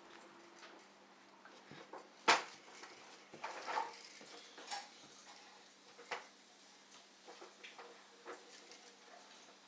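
Plastic baby push walker clicking and rattling as a toddler pushes it over carpet, in scattered small knocks, with one sharp knock about two seconds in.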